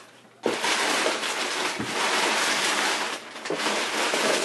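Crumpled brown kraft packing paper crackling and rustling as hands dig through a cardboard box, starting suddenly about half a second in.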